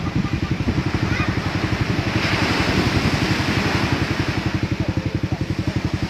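Fast, even low pulsing of an idling engine, with the hiss of surf breaking on the shore.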